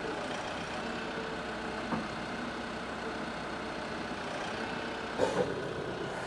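TYM T654 tractor's diesel engine idling steadily, with a short clatter about five seconds in as the steel plate is shifted on the trailer.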